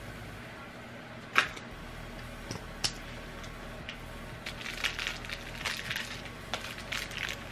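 Packing tape being picked and peeled off a small plastic case of bobby pins: a sharp click about a second and a half in, a second click near three seconds, then a stretch of scratchy crinkling and crackling.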